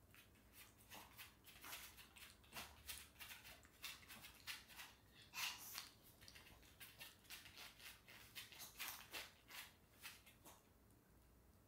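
Pomeranian eating from a food bowl: quick, irregular chewing clicks and crunches that stop near the end.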